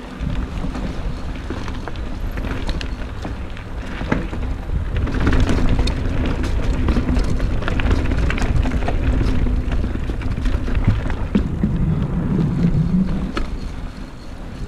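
Mountain bike rolling fast along a trail, with wind rumbling on the GoPro's microphone and scattered ticks and knocks from the bike over rough ground. The sound grows louder about four seconds in and eases near the end.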